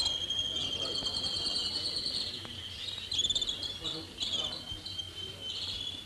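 Canaries singing: long high trills and rolling phrases, sometimes two voices overlapping. The first trill is held about two seconds, followed by shorter broken phrases.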